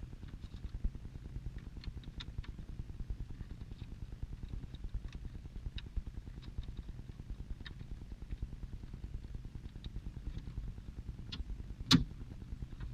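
Small plastic clicks and handling of a replacement glove box latch being worked into a Chevrolet Uplander glove box, then one sharp snap near the end as the latch snaps into place, over a steady low rumble.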